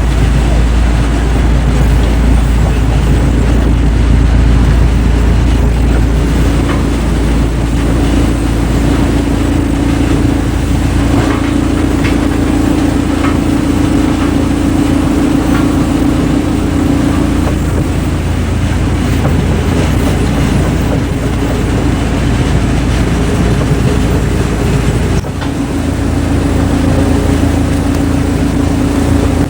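Large machine running loudly and steadily, with a constant hum over a deep rumble. The sound dips and changes abruptly about 25 seconds in.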